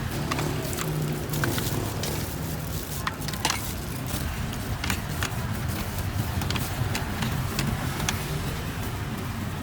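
Low steady rumble of street traffic, with scattered sharp clicks and knocks at irregular intervals.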